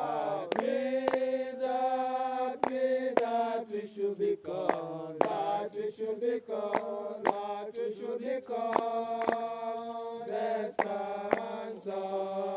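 Voices chanting a slow, sung hymn in long held notes, with sharp knocks about twice a second keeping time.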